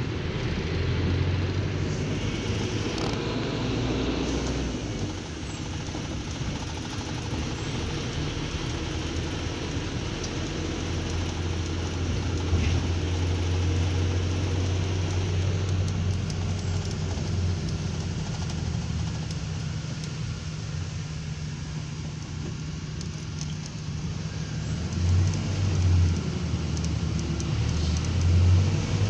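Minibus engine and road noise heard from inside the cabin while driving: a steady low drone with a few louder swells near the end.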